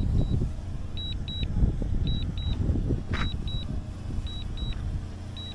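DJI drone remote controller beeping its return-to-home alert: a high double beep repeated about once a second, five times, as the Mini 2 SE comes in to land. A low rumble runs underneath.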